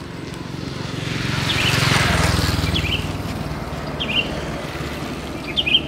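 A motor vehicle passes by on the road: its engine and tyre noise swell to a peak about two seconds in, then fade. Short bird chirps sound several times.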